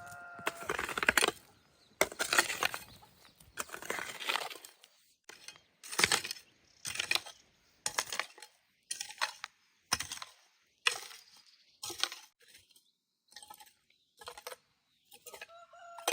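Repeated scrapes and knocks of a hand tool working cement, about one stroke a second, with the strokes uneven in length and loudness.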